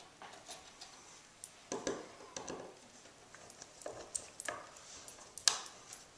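Hand screwdriver driving a small screw through a hanging ring into the back of a picture frame: scattered faint clicks and short scrapes of the tip turning in the screw head.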